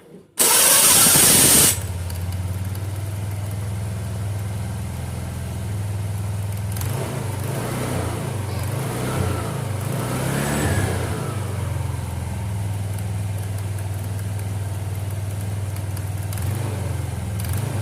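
A loud rushing burst lasting about a second, then a Honda Vario scooter engine running at idle, its note rising and wavering a little near the middle as it is lightly revved.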